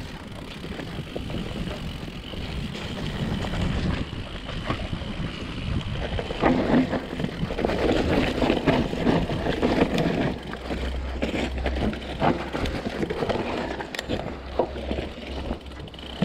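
Mountain bike riding fast down a dirt forest singletrack: tyre noise over the dirt and roots, with the clicks and rattles of the bike over bumps. Wind buffets the microphone, with a heavier low rumble in the second half.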